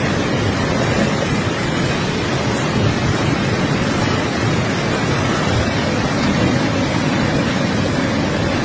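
Excavator engine running steadily under wind noise on the microphone.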